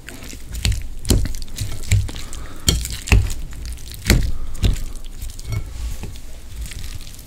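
Wooden chopsticks mixing sauced makguksu noodles in a ceramic bowl: wet, squishy stirring of the noodles with about ten irregular knocks as the chopsticks strike the bowl.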